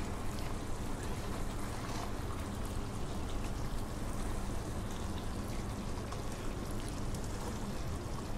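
Thick cream-based gravy simmering and bubbling steadily in a kadai, sloshing as a steel spoon stirs it and spoons it over a whole chicken.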